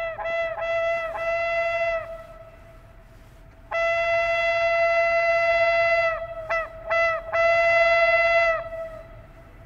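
Air horn of an approaching Serbia Cargo class 661 diesel locomotive sounding one steady note with a ring of overtones, in three soundings. The first is broken into a few quick stabs, then a held note, lasting about two seconds. The second is a steady blast of about two and a half seconds from about four seconds in, and the third is two quick stabs followed by a held note that ends near nine seconds.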